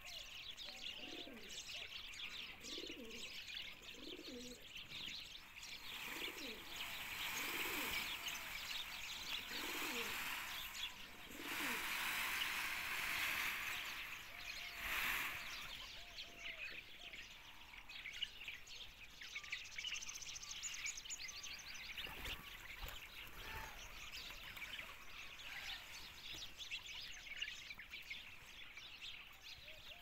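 Rock pigeons cooing, a repeated series of low notes about once a second through the first half, over steady chirping of small birds. A short stretch of wing flapping comes near the middle.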